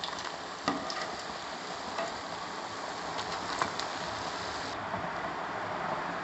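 Hot cooking oil sizzling gently in a frying pan after fritters have been lifted out, with a few light taps about a second, two seconds and three and a half seconds in.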